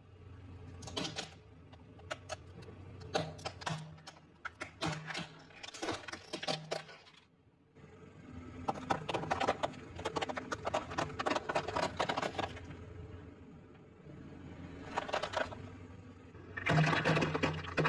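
Car tyre rolling slowly over brittle things and crushing them: clusters of sharp cracking and crunching over a low engine hum. After a break about seven seconds in comes a long dense crackle as it crushes a pile of crispy fried balls.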